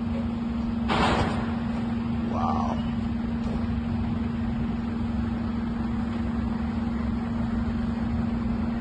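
Steady low rumble of vehicle engines with a constant hum, and a brief burst of noise about a second in.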